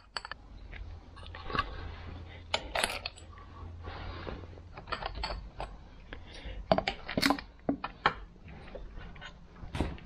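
Irregular metallic clicks, clinks and scrapes of a socket wrench and loose metal parts as nuts are undone on a Citroën 2CV engine's carburettor, with a few sharper knocks about seven and ten seconds in.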